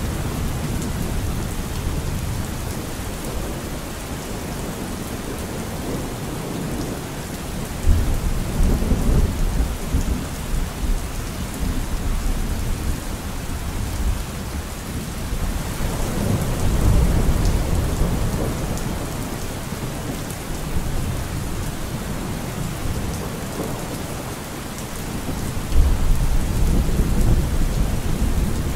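Steady rain with thunder rolling in three times, a deep rumble swelling up about eight, sixteen and twenty-six seconds in.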